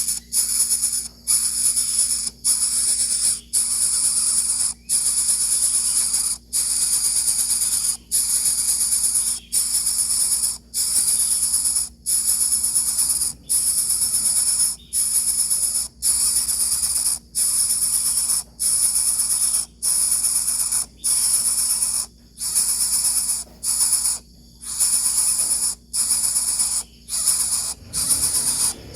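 Greater coucal chicks hissing in loud, high bursts of about a second each, broken by short gaps, over and over.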